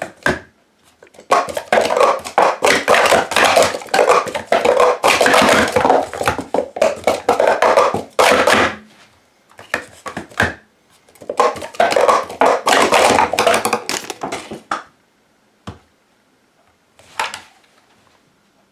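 Plastic sport stacking cups (Stack Up! cups) being rapidly stacked up and down on a stacking mat: a dense clatter of cup-on-cup clicks in two long runs of several seconds each, with a short burst between them, then a few scattered knocks near the end.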